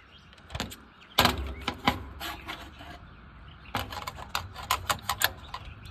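A tool working the 1/4-inch bolts at the back of a top-load washing machine's cabinet: two spells of quick, uneven metallic clicks and rattles as the bolts are taken out.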